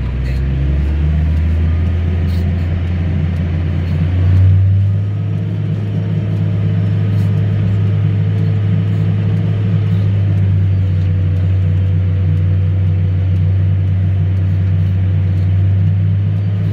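A farm vehicle's engine running with a steady low drone, heard from inside the closed cab. It picks up a little about a second in and swells briefly about four seconds in.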